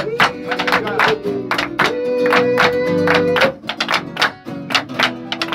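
Live Argentine folk music: acoustic guitars strummed in a fast, steady rhythm, with singing. One long note is held through the middle.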